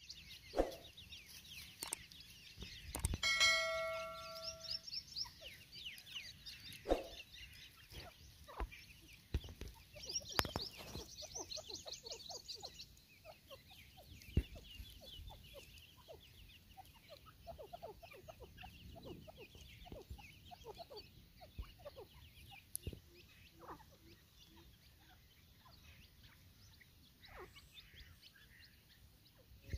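Grey francolins making soft, scattered clucking calls while foraging, over faint high chirping trills from small birds. A couple of sharp knocks sound, and a brief steady tone comes about three seconds in.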